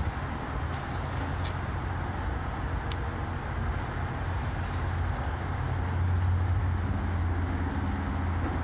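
Steady low hum of electric tram equipment at the depot, with an even outdoor background noise and a few faint clicks. It grows a little louder about six seconds in.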